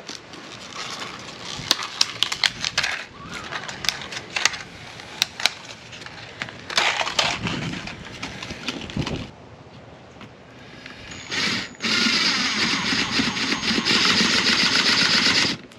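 Clicks and clinks of small metal hinge hardware being handled against wooden boards. Then a cordless drill-driver runs briefly about eleven seconds in, and from about twelve seconds runs steadily for about three and a half seconds, driving a Phillips screw through a metal hinge into a 1x4 board.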